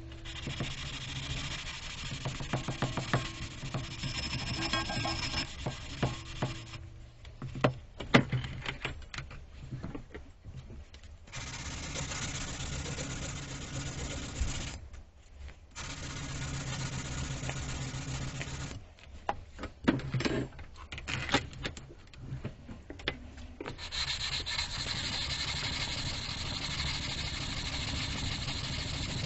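Abrasive rubbing on the metal square in several steady stretches of a few seconds each, with short pauses between them that hold scattered clicks and knocks.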